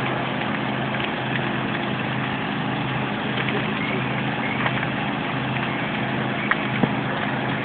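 A steady engine drone running without change, with a few faint sharp cracks over it.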